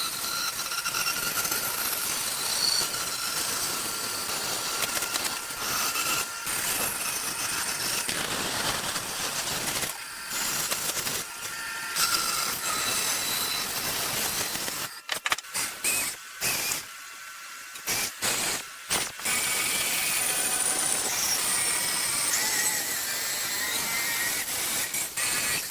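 Steady hissing noise from a woodworking machine running, with a few short drop-outs a little past the middle.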